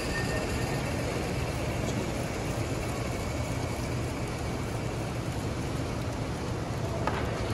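Garden-scale live-steam model locomotive running past on its track: a steady hiss and rolling rumble of the engine and its train of cars, with a steady low hum underneath.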